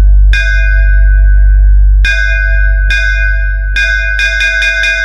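DJ bass-test music played through a JBL speaker. A deep, sustained bass tone sits under bright bell strikes: four spaced hits, then a quick run of hits near the end.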